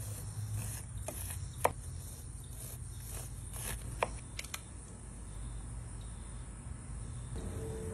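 Chef's knife cutting kernels off a grilled corn cob, the blade knocking sharply on the cutting board about a second and a half in and again about four seconds in, over a steady high hiss.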